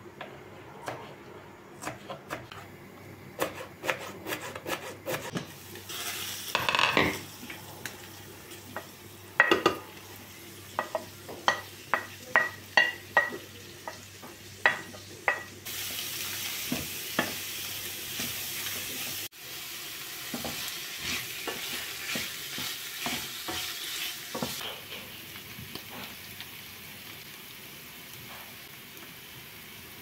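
A knife chopping green peppers on a wooden cutting board, a run of sharp clicks. About halfway through, diced chicken and peppers start sizzling in a stainless steel sauté pan, stirred and scraped with a wooden spatula.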